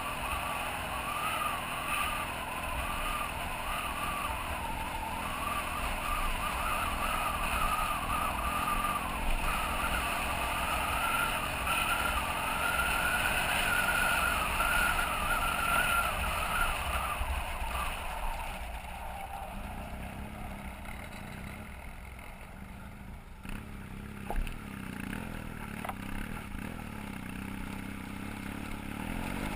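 BMW F800GS parallel-twin engine pulling up a gravel road, its pitch wavering up and down with the throttle and growing louder. A little over halfway through it eases off to a quieter, lower steady note, and there is a single knock about three-quarters through.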